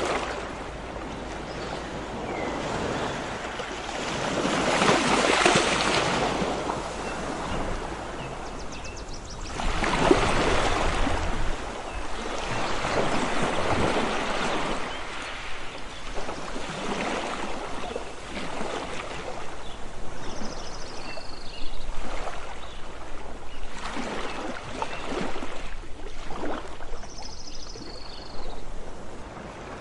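Sea waves washing onto a beach, the surf noise swelling and falling back every few seconds. Two short high chirps sound over it in the second half.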